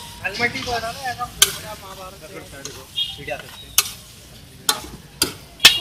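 Metal spatula stirring and scraping a sizzling chole and paneer mixture on a large flat tawa, with a frying sizzle throughout. Sharp clacks of the spatula striking the griddle come several times, the loudest near the end.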